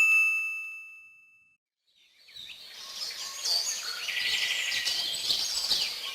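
A single bright "ting" chime, struck once and fading over about a second and a half. Then, about two seconds in, birds chirping and trilling.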